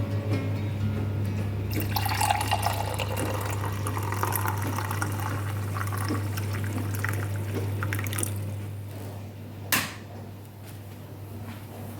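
Water running from a tap, splashing into a container for several seconds and then stopping, followed by a single sharp click or knock.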